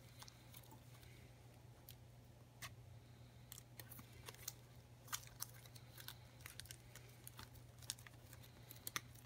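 Trading cards being flipped through by hand: faint, irregular clicks and snaps of card edges, coming more often in the second half, over a low steady hum.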